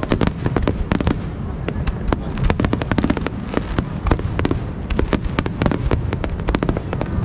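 A fireworks display going off, with many sharp bangs and crackles a second in rapid succession over a low rumble.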